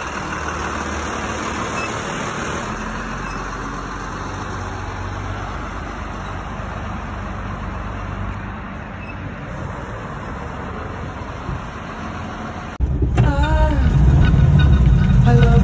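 Flatbed tow truck's engine running steadily with street traffic noise. About thirteen seconds in the sound cuts to a much louder, deep engine rumble with music over it.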